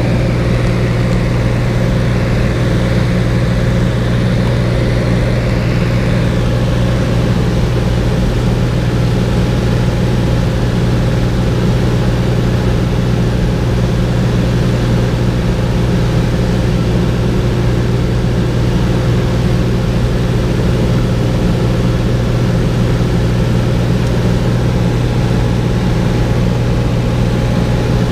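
Cessna 210 in cruise heard from inside the cabin: the steady, loud drone of its flat-six piston engine and propeller, with the rush of air around the cabin, unchanging throughout.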